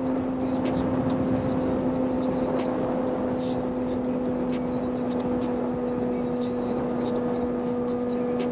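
Sport motorcycle engine holding one steady note at highway cruising speed, with a constant rush of wind noise over the helmet-mounted microphone.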